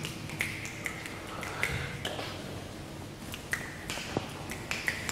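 Footsteps on a wooden floor: light, irregular clicks of shoe heels, each with a short ringing echo, over a faint steady hum of room tone.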